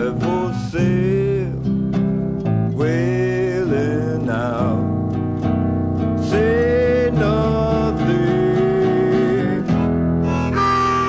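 Acoustic folk-country band music played from a vinyl record: strummed acoustic guitar chords under a lead melody that bends and slides in pitch, with no sung words.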